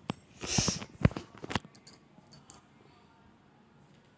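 A metal slotted spoon clinks and scrapes against an iron kadhai of hot frying oil several times in the first two and a half seconds, with one short hiss among the clinks.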